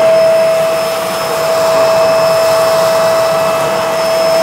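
Bissell MultiClean Allergen Lift-Off Pet upright vacuum (model 2998) running with its brush roller switched off: a steady motor whine over rushing air as it is pushed over litter and confetti on a hard floor.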